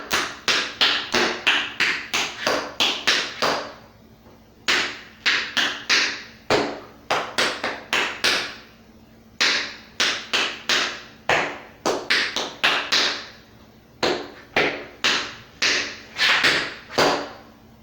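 Tap shoes striking a hard floor in quick runs of sharp taps, about four a second, danced as rhythmic phrases of a few seconds each with brief pauses between them.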